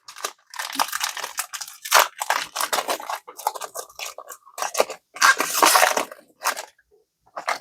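Crinkling and rustling as a foil booster pack and its trading cards are handled, in irregular spells with louder crinkles about two seconds in and again around five to six seconds in.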